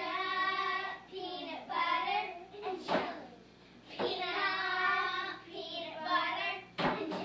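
Several young children singing together in long held notes, phrase by phrase. A few sharp smacks cut in, one about three seconds in and two close together near the end.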